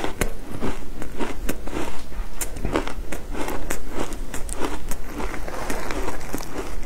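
Frozen shaved ice crunching up close as it is chewed and squeezed by hand: a dense run of sharp, irregular crunches and crackles, several a second.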